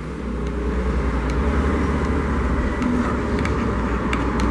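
Low, steady rumble of passing road traffic, swelling slightly near the end, with a few faint clicks.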